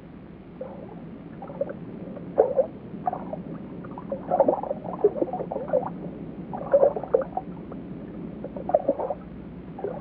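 Underwater bubbling and gurgling around a diving steamer duck: irregular short gurgles in clusters over a steady water hiss.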